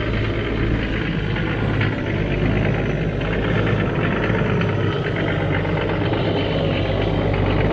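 Toyota Land Cruiser HZJ78's diesel engine running low and steady as the truck crawls down a grassy slope off-road, growing slightly louder as it comes closer.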